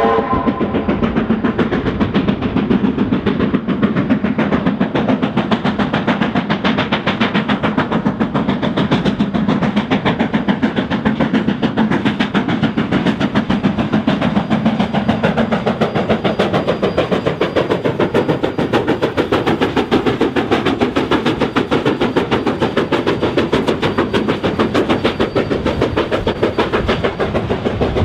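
NZR Ka class 4-8-4 steam locomotive Ka 942 working hard under load, its exhaust beating in a rapid, even rhythm.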